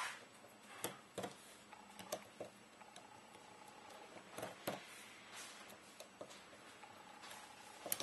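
Irregular light clicks of a small Torx screwdriver seating in and turning the shell screws of a version 2 airsoft gearbox, the screws being lightly hand-tightened to close the gearbox.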